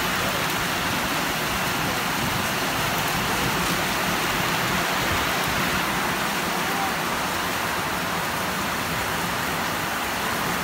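Heavy downpour: a steady, even hiss of rain pouring down.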